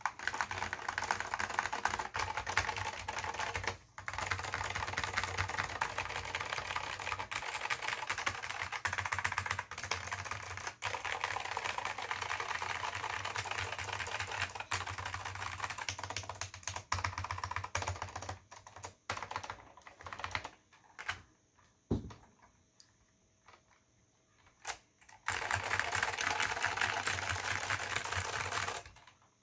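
Typing on an Apple Extended Keyboard II with salmon Alps SKCM switches and Apple Alps keycaps: a fast, dense run of keystrokes. About two-thirds of the way through it thins to a few separate key presses, with a short pause broken by one loud keystroke. Fast typing starts again near the end.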